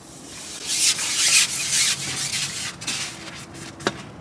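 Carbon fishing pole sliding over a pole roller and through the hands: a rasping rub that comes in uneven surges, with one sharp click near the end.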